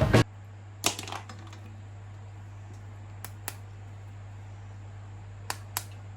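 A few light clicks and taps, mostly in pairs, over a steady low hum. The clicks are typical of plastic action figures and their packaging being handled.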